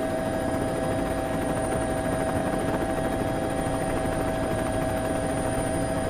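Helicopter flying, a steady rotor and engine drone with no change in pitch.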